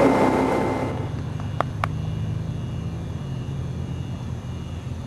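Ski boat's inboard engine running at speed, with the wake's water noise, loud for about the first second before it cuts away. A quieter, steady low hum follows, with two short clicks.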